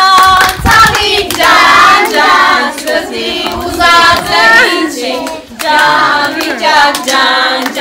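Women and children singing a song together, clapping their hands along with it.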